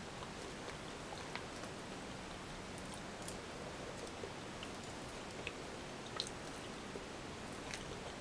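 Quiet eating sounds: chewing, and a few scattered light clicks of a plastic knife and fork against a polystyrene takeaway box, over a steady low hiss.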